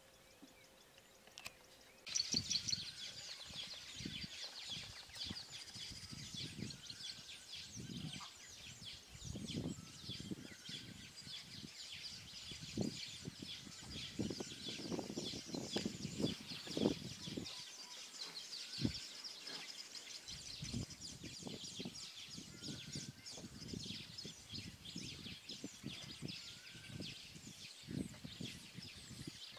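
Outdoor chorus of dense, high-pitched chirping and chirring that starts suddenly about two seconds in, with irregular low rumbling thumps underneath.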